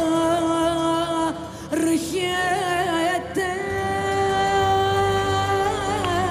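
A woman singing live, holding long notes with quick ornamented turns and two short breaks for breath, over accordion accompaniment. The phrase ends on a falling final note near the end.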